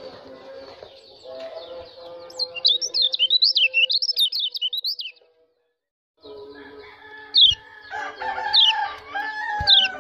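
White-eye (pleci) giving fast 'ciak' chirping calls. A quick run of high, wavering chirps lasts from about two seconds in to about five seconds. After a short break come single quick downward-sweeping chirps.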